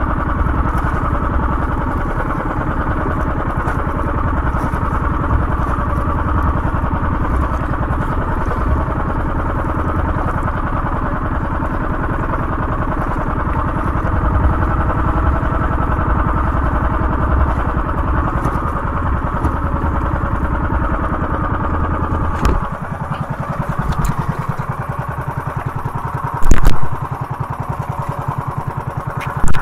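Small boat engine running steadily while trolling, its low throb dropping away about three quarters of the way through. A loud thump comes near the end.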